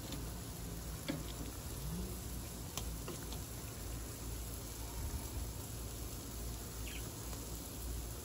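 Pork belly sizzling on a barbecue grill: a steady hiss, with a few light clicks scattered through it.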